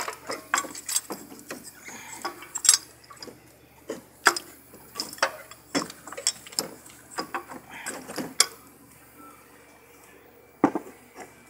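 Irregular metallic clinks and knocks, a few of them louder, as the 2008 Nissan Altima's water pump housing is wiggled loose by hand and worked out of the engine.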